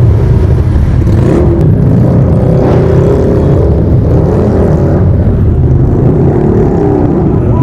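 Motorcycle engine running steadily under way, its pitch drifting slightly up and down as engine speed changes.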